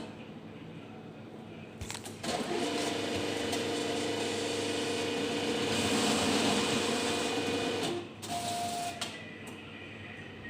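Cash-deposit ATM's note acceptor drawing in and counting a stack of ten banknotes: a steady motorised whirring of about five and a half seconds, then a short mechanical burst a moment after it stops.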